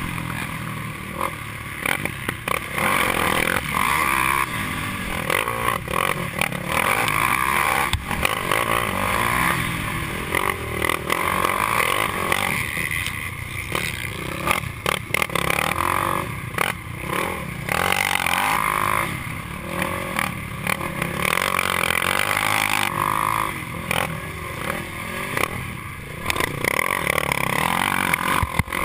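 Racing quad's engine revving hard, rising and falling over and over as the rider gets on and off the throttle, heard from on board, with frequent knocks and rattles from the machine bouncing over the rough dirt track.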